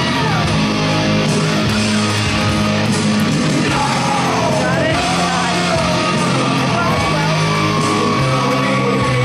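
Loud rock song with a singer over guitar and a steady beat, the wrestler's entrance music played over the arena's sound system.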